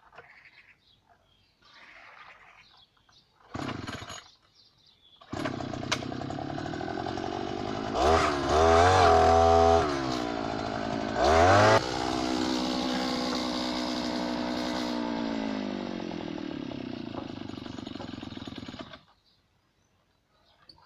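Petrol earth auger's two-stroke engine: a short burst, then it starts about five seconds in and runs, revving hard twice as the auger bores into the soil before settling to a steady run. It cuts off suddenly near the end.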